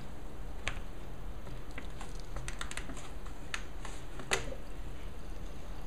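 A clear plastic soda bottle being handled, giving a scattering of small clicks and crackles from the bottle and its cap, with one louder click a little past the middle.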